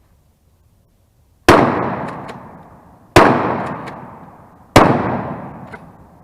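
Maverick bullpup 12-gauge pump-action shotgun fired three times, about a second and a half apart, each shot a loud bang that dies away slowly, with short faint clicks between the shots.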